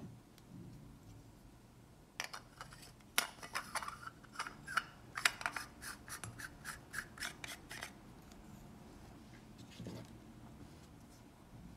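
Threaded metal lightsaber hilt sections, brass and chrome, being screwed together by hand: a run of short scraping clicks from the threads, starting about two seconds in and settling into about four strokes a second before stopping.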